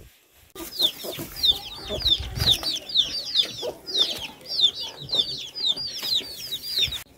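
Domestic chicks peeping: many short, high chirps that slide downward, several a second and overlapping, stopping just before the end.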